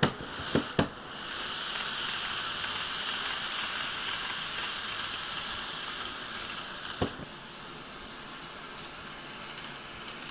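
KATO N-gauge model of a 521 series electric train running on the track: a steady hissing run of motor and wheels that is louder for about six seconds, then drops back. A few sharp clicks come near the start and one more about seven seconds in.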